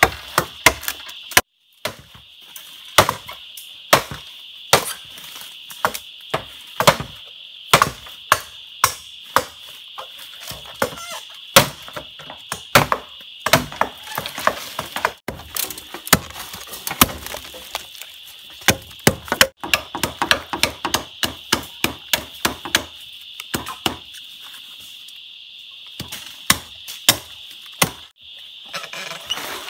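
Bamboo being chopped with a blade: repeated sharp chops at an uneven pace, about one or two a second, with a pause of a couple of seconds late on.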